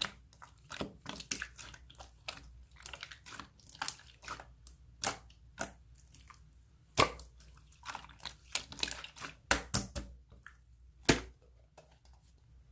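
Pink clear slime with gold pearl glitter being squished and pressed by hand, giving irregular wet pops and clicks, with louder pops about seven seconds in and again near the end.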